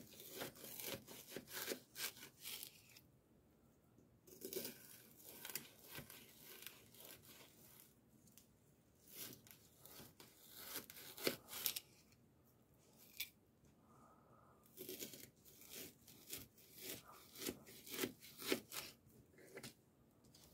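A kitchen knife slicing through partially frozen chicken breasts, in bursts of short cutting strokes with brief pauses between them.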